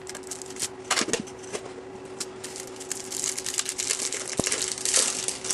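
Crinkling and rustling of a trading-card pack's plastic wrapper being handled and opened, with scattered clicks, denser in the second half, over a faint steady hum.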